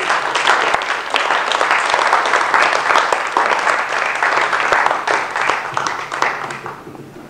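Audience applauding, many hands clapping at once, dying away over the last second.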